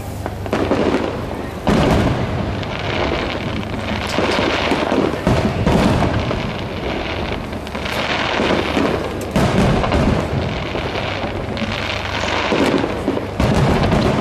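Aerial fireworks shells bursting in quick succession: repeated booms with crackling and rumbling between them, the loudest reports about two seconds in and near the end.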